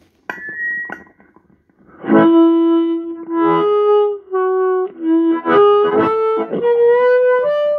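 C harmonica played into a Hohner Harp Blaster mic cupped in one hand, amplified through a Roland Cube Street amp on its Brit Combo amp model. A brief high note, then from about two seconds in a phrase of loud held notes that steps upward in pitch near the end.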